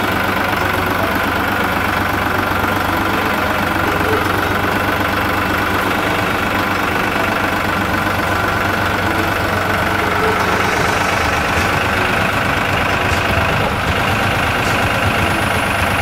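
Tractor engine running steadily at an even speed.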